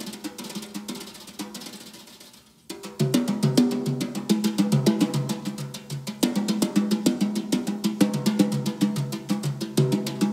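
Jazz drummer playing a Sonor drum kit. A quieter, fading stretch of light cymbal and stick ticks gives way about three seconds in to a busy, dense run of snare and tom strokes.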